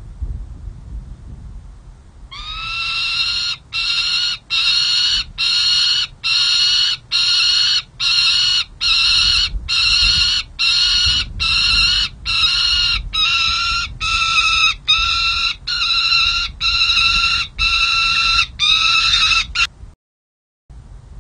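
A juvenile peregrine falcon calls over and over: harsh, drawn-out notes, each about half a second long, repeated about one and a half times a second. The calls start about two seconds in and stop shortly before the end.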